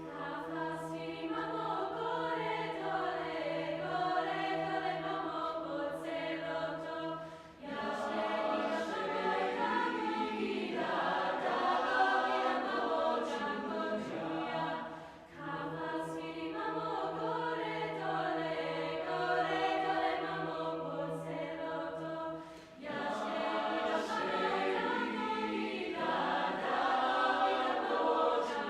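Mixed youth chorus singing a cappella, several voice parts moving above a steady low held drone note. The phrases break off briefly three times, as the singers breathe, before the next phrase enters.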